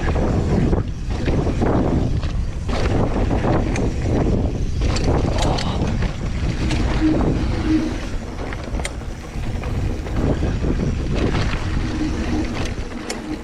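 A Vitus Sentier 2020 hardtail mountain bike riding fast down a bumpy trail, with loud wind rumble on an action-camera microphone. Scattered clicks and rattles are chain slap against the frame over the bumps, and a brief hum comes twice, around the middle and near the end.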